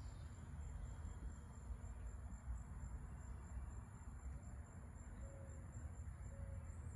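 Faint, steady, high-pitched insect drone over a low rumble.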